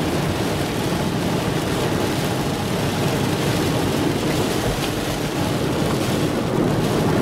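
Nissan 350Z driving through standing floodwater on a street, water rushing and splashing against the car's underside and wheel wells in a steady, low churning rush, heard from the driver's seat.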